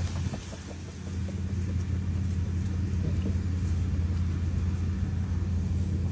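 Steady low rumble throughout.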